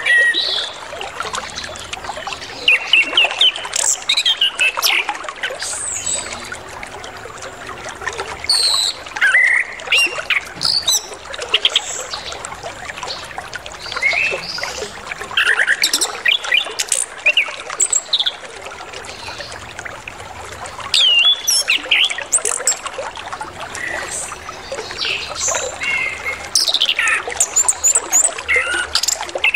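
Orange-headed thrush singing loudly in bursts of varied whistles, sweeps and chirps, a full song packed with mimicked calls of other birds. Steady trickling water runs underneath.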